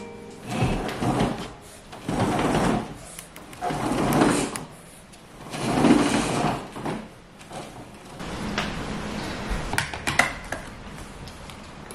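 A window roller shutter being hauled up by its strap in four pulls, each a rattling rush of about a second. A few light clicks follow near the end.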